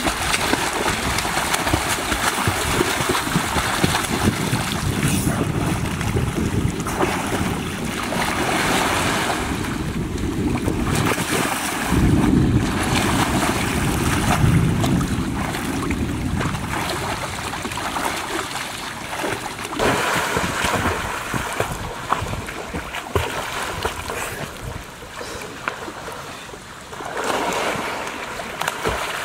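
Water splashing and churning as a person swims and kicks through a pool.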